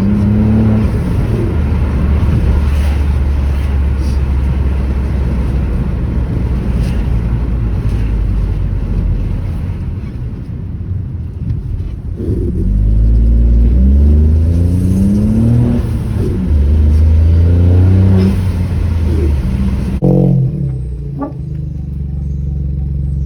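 Ford Focus 1.0 EcoBoost three-cylinder turbo engine driving under acceleration, revs rising then dropping and rising again as it changes gear.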